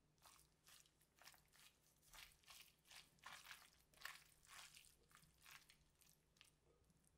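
Bare hands squeezing and tossing bomdong (Korean spring cabbage) leaves dressed in soybean-paste seasoning in a glass bowl: quiet, irregular wet crunching and rustling of the leaves, two or three squeezes a second.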